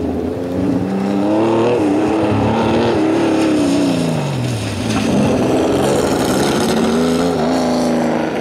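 Race car engine revving and easing off as it weaves through a cone slalom. Its pitch sinks to a low point about halfway through, then climbs again, over a steady hiss.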